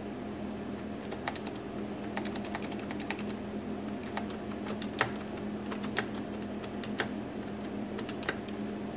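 Keys being pressed one at a time on a computer keyboard: unhurried, unevenly spaced keystroke clicks, about two a second, over a steady low hum.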